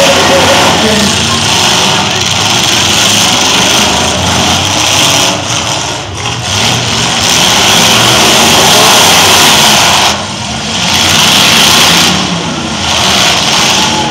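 Demolition derby trucks' engines running loud and revving in the ring. The noise drops briefly twice.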